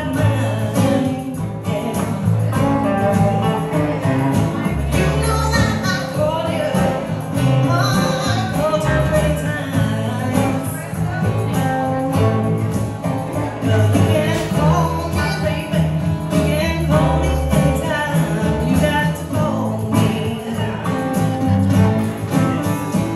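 Live band playing: electric guitar, electric bass and acoustic guitar, with a woman singing lead at the microphone.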